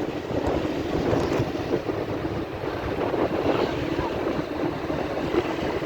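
Wind buffeting the microphone on the move, a steady rough rumble with vehicle and road noise underneath.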